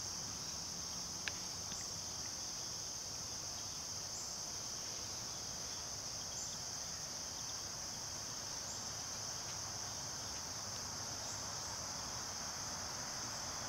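A steady, high-pitched insect chorus, with one faint click about a second in.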